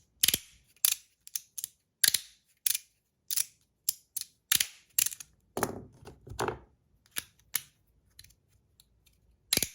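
Three-click 'crunchy' 3D-printed magnetic haptic slider fidget being slid back and forth, its magnets snapping the halves into place with sharp clicks at irregular intervals, about one or two a second.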